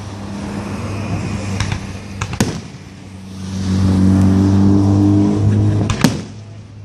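A vehicle engine hums steadily and swells louder for about two seconds past the middle, while scattered sharp firework bangs and pops go off.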